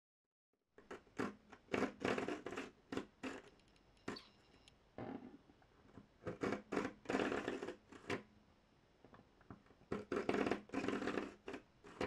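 A multitool's knife blade drawn through the ceramic slot of a Smith's Pocket Pal sharpener, in three rounds of quick scraping strokes with quieter handling between them: light finishing passes that take off the burr left by sharpening the edge on the diamond rod.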